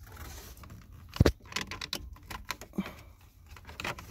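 Scattered plastic clicks and light rattles of a hand working behind a pickup's lower dash panel at the turn-signal relay and its wiring, with one sharp click about a second in.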